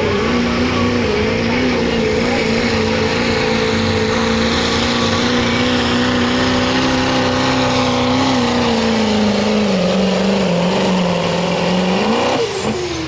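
Turbocharged diesel pickup truck engine under full load, pulling a sled in a truck pull. It holds a steady, high-revving note, sags slightly in pitch late in the pull, then spikes briefly and drops away near the end as the throttle comes off.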